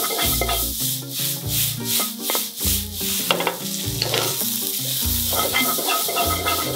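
Diced dried radish stir-frying in an oiled wok: sizzling, with a wooden spatula pushing and scraping it around. Background music with a bass line and a steady shaker beat plays over it.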